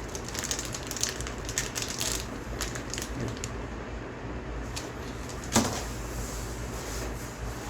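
Packaging and small accessories being handled: a run of light rustles and clicks, with one sharper click about five and a half seconds in, over a low steady hum.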